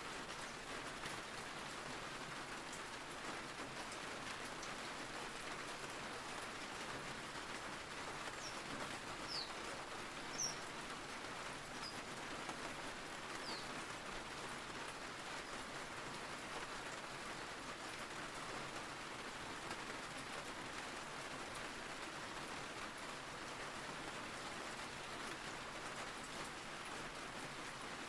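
Steady rain falling, an even hiss without a break. A few short high chirps come through the rain around the middle.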